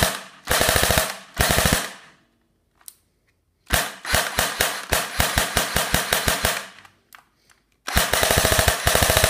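Jing Gong G36C airsoft electric gun firing on full-auto: rapid runs of evenly spaced mechanical clicks from the gearbox cycling. Two short bursts come first, then a pause of about two seconds, a long burst of about three seconds, and another burst near the end.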